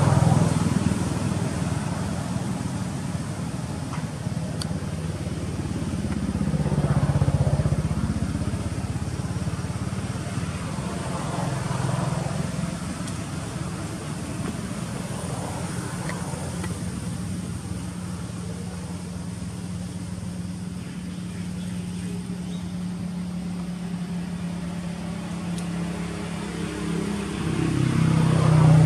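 Engine noise: a steady low hum that swells and fades several times, loudest near the end.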